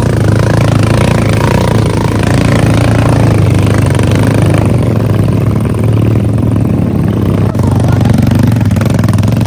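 Motorcycle engine running steadily with an even low hum, heard from on board the bike.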